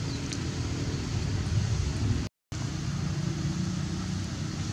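Steady low rumble with hiss, broken by a brief dropout to silence a little over two seconds in.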